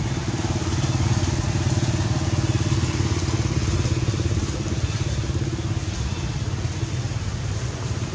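An engine running with a steady low drone, swelling slightly about a second in and easing off again after about five seconds.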